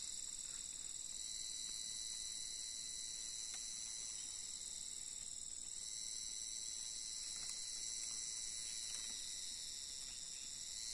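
Insect chorus in dry forest, a steady, high-pitched shrill of many insects calling together without a break.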